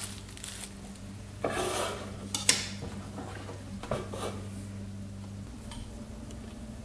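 Small objects being handled on a workbench, likely multimeter test leads being picked up: a brief rustle about a second and a half in, then two sharp clicks, the second the loudest, and lighter clinks around four seconds. A steady low electrical hum runs underneath and changes about five and a half seconds in.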